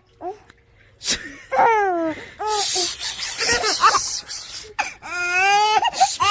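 A baby laughing: high-pitched squealing laughs in several runs, starting about a second in, with breathy, wheezy laughter in the middle.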